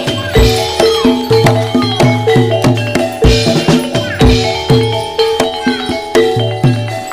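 Javanese gamelan-style music accompanying a barongan dance: drum strokes and struck, ringing pitched tones in a steady rhythm.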